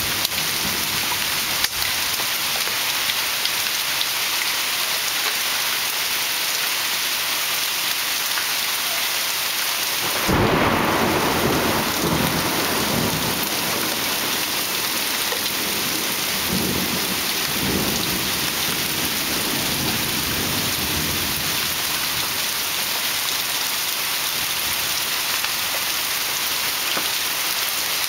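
Heavy rain pouring steadily in a thunderstorm. About a third of the way in, a sudden clap of thunder breaks out, and its rumble rolls on for several seconds before fading back under the rain.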